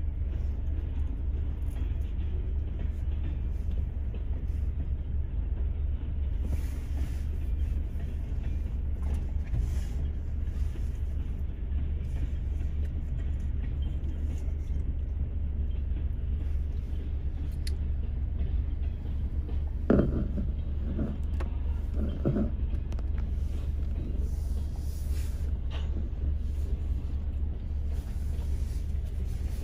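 Freight cars rolling past over a grade crossing, heard from inside a stopped car as a steady low rumble. A few short creaks or squeals come about two-thirds of the way through.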